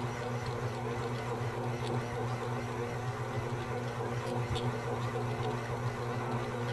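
Smeg 600-watt stand mixer's motor running with a steady low hum as its dough hook kneads a sticky bread dough. The dough is binding on the hook and spinning round with it rather than being worked.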